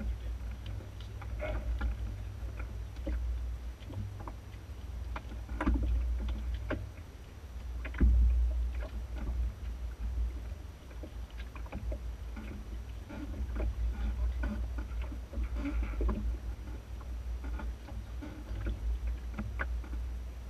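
Enterprise sailing dinghy under way, heard from inside the hull: a steady low rumble with scattered knocks and creaks from the boat, the sharpest knock about eight seconds in.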